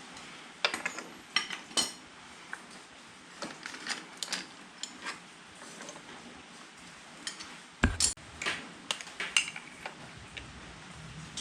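Metal hand tools and parts clinking and knocking, in irregular sharp clicks with a heavier knock about eight seconds in.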